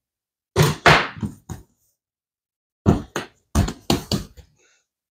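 Repeated thumps of hands slapping and pressing bread dough on a countertop, in two runs of about four quick blows.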